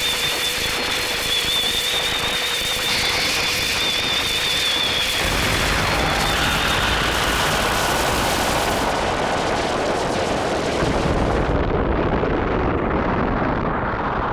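Analog-synthesizer recreation of an anime energy-cannon blast: a dense, noisy roar with warbling high tones, joined about five seconds in by a heavy low rumble, then growing darker as the highs drop away near the end.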